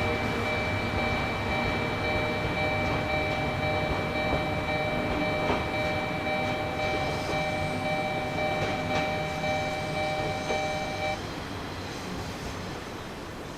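Diesel train moving through the station: low engine and rail rumble under a steady, high-pitched wheel squeal that cuts off suddenly about eleven seconds in.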